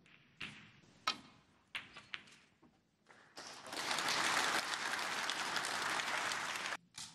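A few sharp clicks and taps, then a snooker crowd applauding for about three and a half seconds before the clapping stops abruptly.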